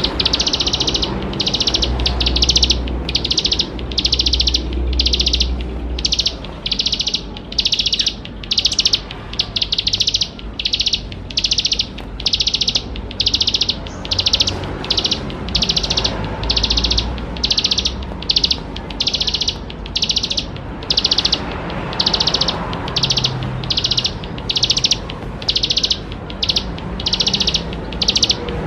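A ciblek sawah, a small prinia, singing a long unbroken series of short, high, buzzy trilled phrases, about four every three seconds. A faint low hum sits underneath.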